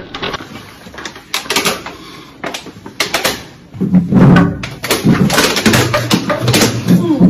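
Thin plastic water bottles crackling as they are squeezed and drained in quick gulps. About four seconds in, loud voices break out and carry on.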